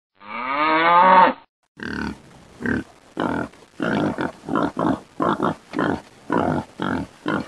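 Pig sounds: a rising squeal lasting about a second, then short grunts repeating evenly about twice a second.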